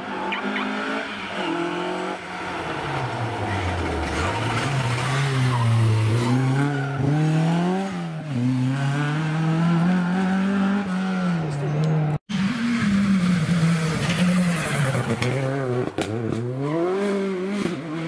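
Ford Escort Mk2 rally car driven hard through a bend, its engine pitch falling steeply about four seconds in, then climbing and dipping again and again as it accelerates. After a sudden cut about twelve seconds in, a second rally car's engine runs at high revs.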